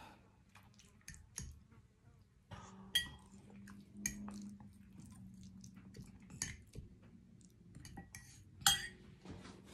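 Metal fork scraping and clinking against a ceramic bowl as food is picked up, in a string of light clicks with two sharper ringing clinks, about three seconds in and near the end.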